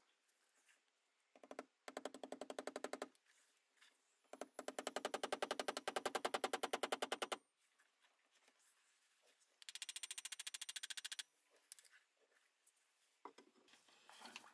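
Restored 1960s Black & Decker D520 electric drill switched on and run in three short bursts. It is heard as a fast, even rattle of about fifteen pulses a second. The first burst is short, the second longer, and the third, near the end, is higher and thinner.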